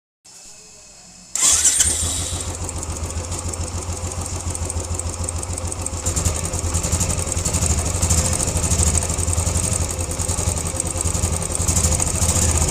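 Royal Enfield Classic 350 single-cylinder engine starting, catching about a second and a half in, then idling steadily after tappet and timing-gear repair work, without the 'chhan chhan' rattle it had before.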